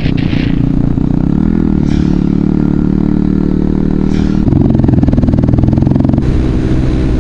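KTM Duke 125's single-cylinder four-stroke engine running on the move, with wind rush on the bike-mounted camera. The engine note dips and climbs again about a second and a half in, and the sound changes abruptly twice in the second half.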